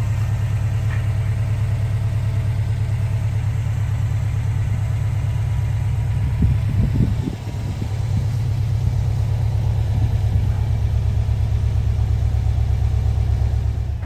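Subaru WRX STI's turbocharged 2.5-litre flat-four engine idling steadily with a low, even pulse. It turns briefly uneven about seven seconds in.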